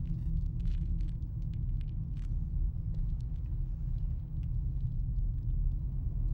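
A steady low rumble of night ambience, with faint scattered ticks above it.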